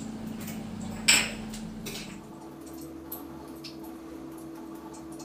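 Kitchen knife cutting almonds into small pieces, making a few sharp metallic clicks against a small steel bowl, the loudest about a second in, over a low steady hum.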